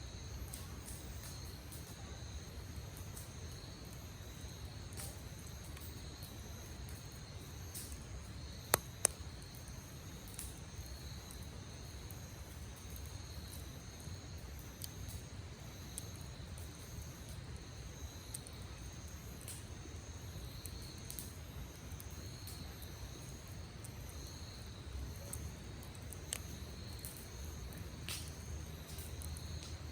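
Campfire crackling with scattered sharp pops, two loud ones close together about nine seconds in, over steady high-pitched insect chirping.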